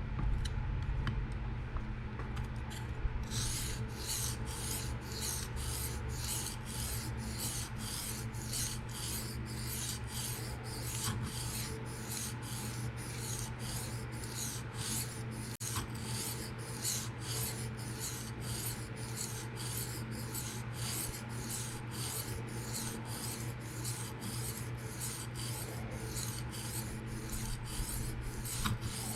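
A PM60 steel knife blade stroked back and forth across a 600-grit Atoma diamond plate, a rasping scrape about twice a second that starts about three seconds in. The second side of the bevel is being ground down until it meets the burr raised from the first side.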